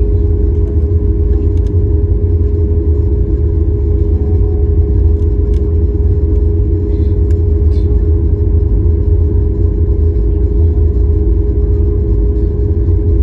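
Boeing 737 cabin noise while taxiing: the engines running at low taxi power give a steady, deep rumble with a constant hum over it.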